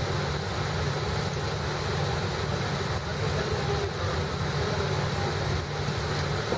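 Steady cabin noise of a Boeing 787-8 airliner in flight: an even rushing hum of airflow and engines, with no distinct events.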